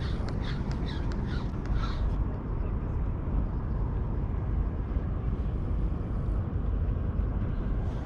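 Steady low rumble of wind on the microphone. Over it a bird calls repeatedly, a few short calls a second, for the first couple of seconds, and starts again right at the end.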